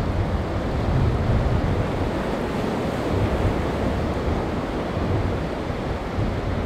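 Rough water and wind buffeting the microphone: a steady, noisy rush with a low rumble underneath.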